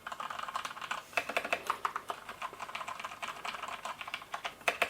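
Fast typing on an Ozone Strike Pro mechanical keyboard with linear Cherry MX Red switches: a quick, uneven stream of key clacks, one of the quieter mechanical keyboards.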